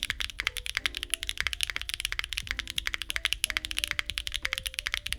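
Fast typing on Bsun Cliff tactile switches (polycarbonate housing, nylon bottom) in a Neo60 Core keyboard with a carbon-fiber plate, no foam and GMK keycaps. The keystrokes come rapid and continuous, crisp, high-pitched and sharp.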